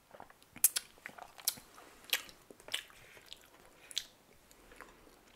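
Close-up mouth sounds of drinking through a straw from a small juice carton: sips and swallows heard as a string of sharp, wet clicks, one every half second to a second.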